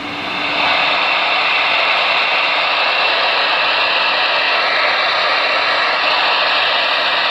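Hiss of static from a Galaxy DX-98VHP ten-meter radio's speaker, an open receiver with no signal on the channel. It swells over the first second, then holds steady.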